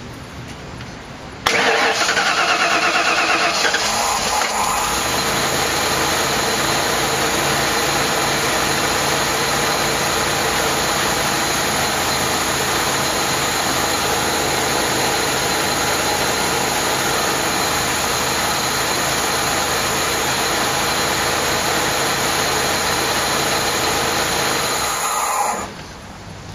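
1993 Ford E350's 5.8-litre V8 starting about a second and a half in, settling into a steady run, and switched off shortly before the end. It starts and runs normally with the open connection between the 30-amp fuse and the PCM relay temporarily jumped, despite almost no voltage on the TFI module's PIP pin.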